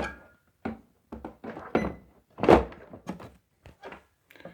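Porcelain toilet tank lid being handled and set onto the tank: a string of hard knocks and clunks, the loudest about two and a half seconds in.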